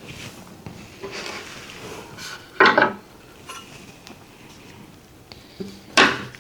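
Tarot cards and their packaging being handled: a soft rustle, then two sharp clacks of hard objects knocking on a table, about three seconds apart.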